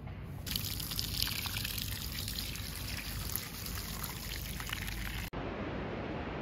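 Stream of water from an outdoor tap running and splashing over hands rinsing raw chicken pieces. It cuts off suddenly near the end, leaving a steady hiss.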